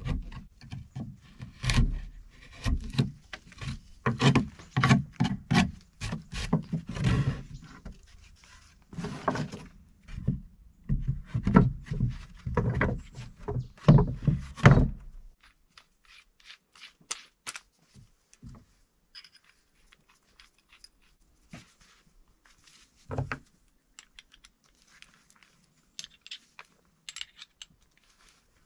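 A chisel driven by repeated hammer blows into a pine beam to cut a notch, the strikes landing in quick runs with wood splitting off. It then goes much quieter, with light scrapes and clicks of wood being handled and one solid knock past the middle.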